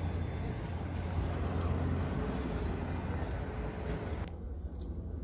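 Steady low rumble of background vehicle noise with a hiss over it; the hiss drops away suddenly about four seconds in.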